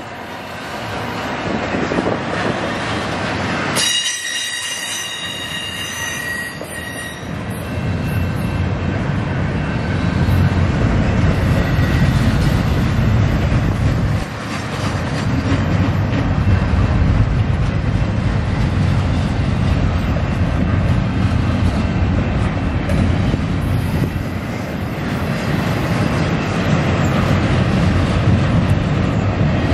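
Double-stack intermodal well cars of a freight train rolling past, with a steady, heavy rumble of steel wheels on rail. A high metallic wheel squeal rings out briefly about four seconds in, and the rumble grows louder from about eight seconds on.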